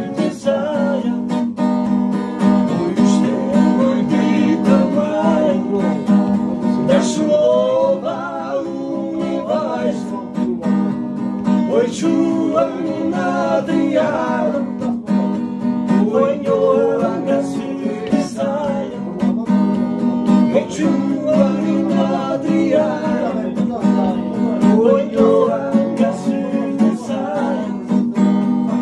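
Acoustic guitar strummed in chords while a man sings the melody over it.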